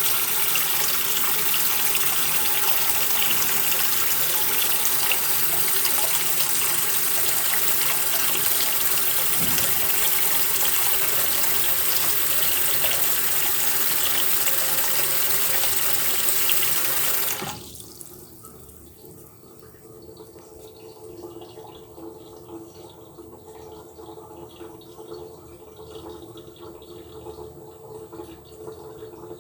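Bathroom washbasin faucet running steadily into the basin. About two-thirds of the way in it is shut off and the sound drops suddenly, leaving a much quieter water sound in the basin.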